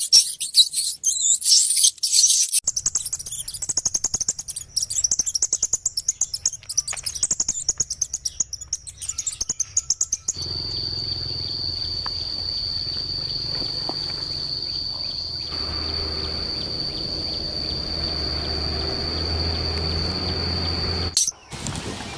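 Birds chirping and calling rapidly for about ten seconds. Then, after a cut, an insect's steady high-pitched buzz holds one unbroken tone for about ten more seconds.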